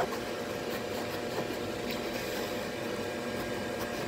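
Blower fan of a Gemmy airblown inflatable running with a steady hum.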